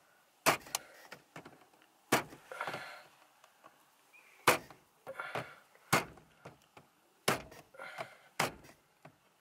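Six sharp knocks, spaced unevenly about a second and a half apart, of a hand tool tapping an aftermarket gauge to seat it in the plastic dash gauge pod of a Nissan 240SX, with a short rattle after some of them.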